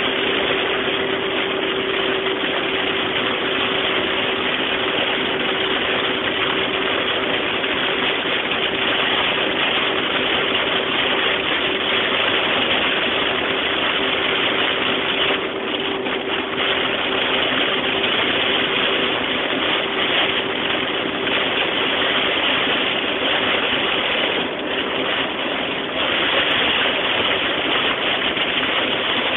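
Rain and tyres on a wet road heard inside a moving car's cabin: a loud, steady rushing noise. A steady hum runs under it and fades out about 25 seconds in.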